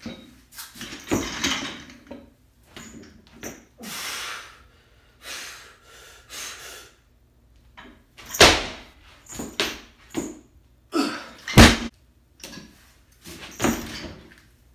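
A heavily loaded barbell with black plates being cleaned and jerked: clanks and thuds of the bar and plates, with hard breaths between lifts. The loudest are two heavy thuds about eight and eleven and a half seconds in.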